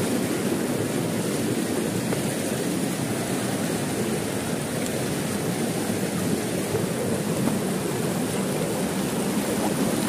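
Steady rushing of falling water from a waterfall, an even hiss that holds unchanged throughout.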